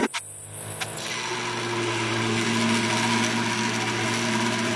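Electric blender grinding boiled chana dal in a glass jar. After a click at the start, the motor comes up to speed over the first second or so and then runs steadily.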